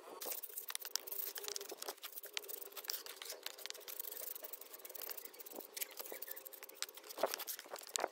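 Steel mason's trowel scraping and patting wet cement mortar as it is spread and smoothed in a wooden form: a steady run of irregular scrapes and small clicks.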